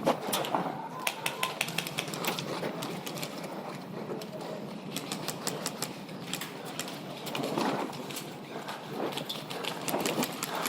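Irregular sharp clicks and ticks, several a second, with faint voices in between.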